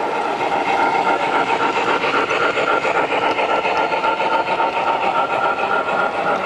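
MTH O-gauge model of a DM&IR 2-8-8-4 Yellowstone steam locomotive running past with its ore hopper cars: a rapid, even steam chuff from its sound system over the steady rumble of wheels on the model track.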